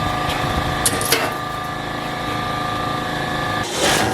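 Angle grinder running at speed with a steady whine, and two sharp clicks about a second in. Near the end the whine stops and a short, loud, harsh burst follows.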